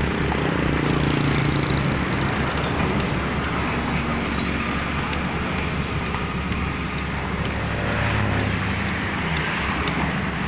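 Large diesel engine running steadily, its low note shifting slightly now and then.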